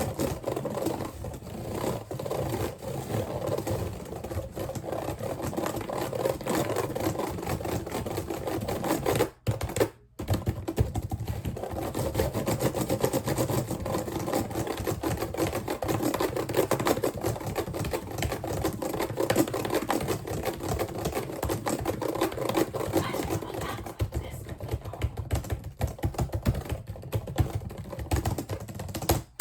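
Rapid, continuous clicking and tapping, with a brief break about nine and a half seconds in.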